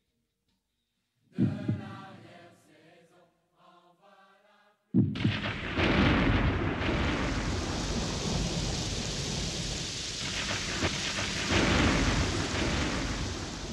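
A few pitched musical tones ring out about a second in and die away. About five seconds in, a sudden crack of thunder opens into a steady thunderstorm rumble with heavy rain, which starts to fade near the end.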